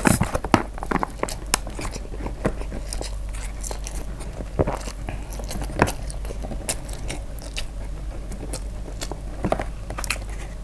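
Close-miked eating of spicy fried noodles: a mouthful is sucked in at the start, then chewed with irregular wet mouth clicks and smacks.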